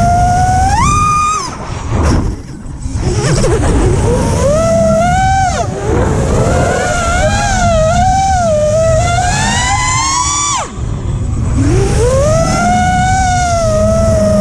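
FPV quadcopter's brushless motors and propellers whining, the pitch rising and falling as the throttle changes. The whine drops away twice, about two seconds in and again near eleven seconds, before climbing back, with a rushing of wind underneath.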